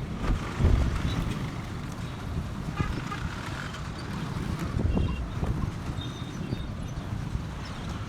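Outdoor street noise: a rough low rumble of wind buffeting the microphone over distant traffic, with a few faint high tones.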